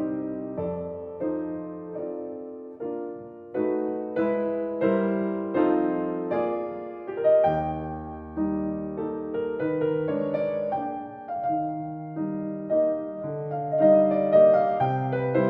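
Solo piano playing a slow, gentle instrumental Christmas piece: chords and melody notes struck one after another, each ringing and fading.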